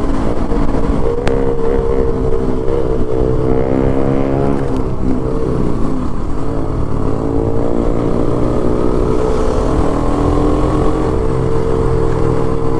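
Yamaha R15M's single-cylinder engine through a full-system SC Project exhaust, running under way. The note holds steady, eases off about four seconds in, then climbs again and holds, with wind rumble underneath.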